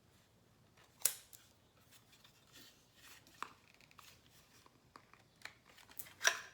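Small clicks, taps and rustles of the doorbell's hard plastic parts and packaging being handled, with a sharp tap about a second in and a louder one near the end.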